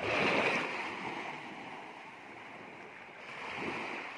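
Small waves washing up on a sandy beach: one surge of surf at the start, the loudest, and a weaker one about three and a half seconds in.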